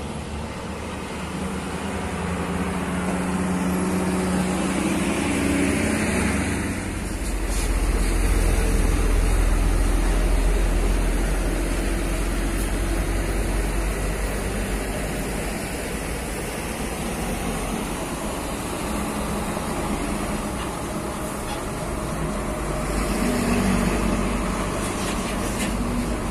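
Heavy diesel trucks passing along a highway, their engines making a steady low rumble with traffic noise. The sound swells as the trucks go by, loudest about a third of the way in and again near the end, when a loaded dump truck passes close.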